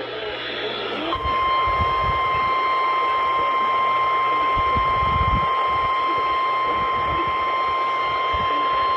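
Weather-radio warning alarm tone: one steady, loud, high-pitched tone that comes on about a second in and holds over radio hiss. It is the alert tone that announces a National Weather Service warning broadcast, here a flash flood warning.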